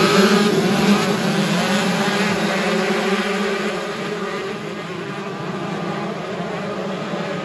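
Racing motorcycle engine running, loud at first, its pitch shifting as it fades over the first four seconds, then a steadier, more distant engine drone.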